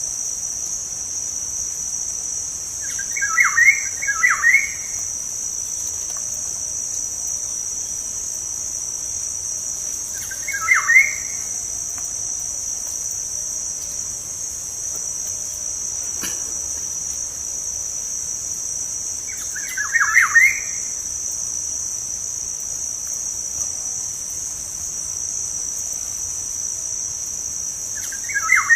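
Black-naped oriole (kepodang) giving short whistled call phrases about every eight seconds, four times, over a steady high-pitched insect drone.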